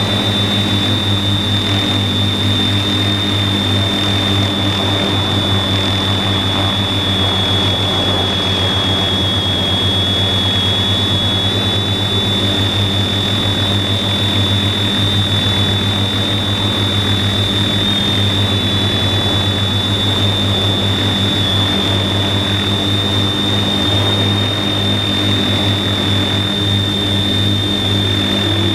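TBS Discovery quadcopter's 400kv motors and 15-inch propellers running steadily, heard from the GoPro mounted on the drone: a high whine that wavers slightly in pitch over a low steady drone.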